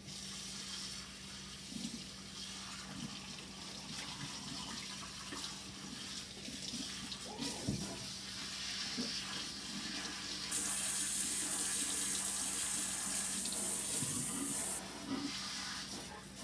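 Water running from a kitchen tap, a steady rush that runs harder for about four seconds past the middle, with a few light knocks among it.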